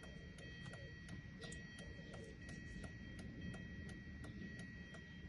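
Faint, even clicking about three times a second, typical of a car's hazard or turn-signal flasher ticking, over a faint steady high-pitched whine.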